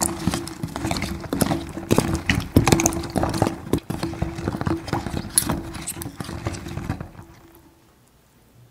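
Wooden spoon stirring mini apples in a glass bowl of baking-soda-and-vinegar water: quick irregular knocks and clicks of apples bumping each other and the glass, with water sloshing. The stirring dies away about seven seconds in, leaving a faint hush.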